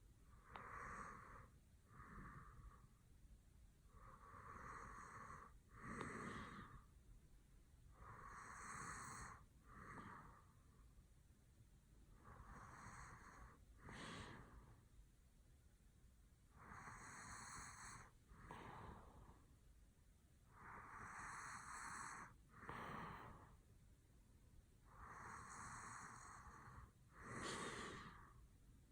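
A sleeping man snoring faintly: slow, even breaths about every four seconds, each in two parts, a longer rush of breath and then a shorter one, seven in all.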